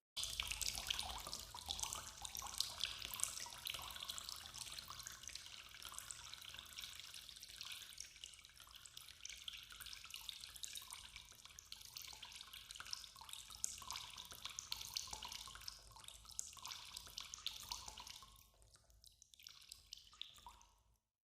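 Water dripping in a cave: many small, irregular drips over a faint low rumble, dying away near the end.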